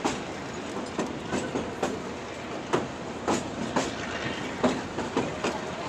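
Passenger train's wheels running over the rails, heard from aboard the moving coach: a steady rumble broken by sharp, irregularly spaced clacks at the rail joints.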